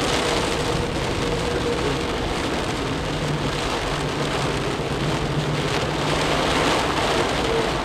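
Heavy rain hitting the car's windshield and roof, heard from inside the moving car as a steady, dense hiss.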